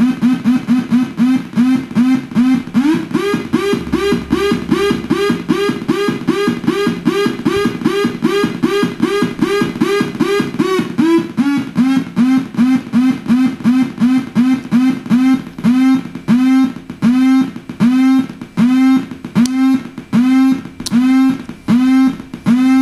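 Homemade Nibbler noise synthesizer pulsing out a rhythmic, buzzy electronic tone while its knobs are turned. The pitch steps up about three seconds in and drops back near eleven seconds. The pulses slow from about four a second to about two a second toward the end.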